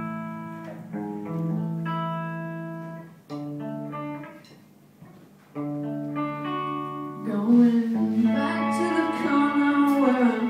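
Live band playing a slow song intro: sustained chords ring out and fade one after another, then a voice starts singing about seven seconds in and the music grows louder.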